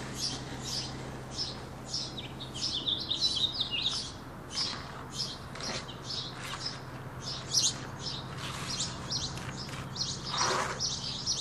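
Small birds chirping, short high calls repeating about twice a second, with a quick fluttering run of notes two to four seconds in. A steady low hum sits underneath.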